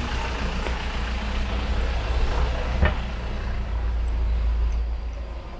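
Steady low rumble of motor traffic on a city street, with one short click about three seconds in.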